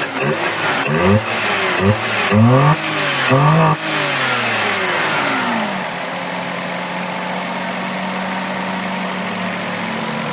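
Suzuki Celerio's 1.0-litre three-cylinder engine, under test for a misfire, revved in several quick throttle blips, then the revs fall away slowly over about two seconds and it settles into a steady idle.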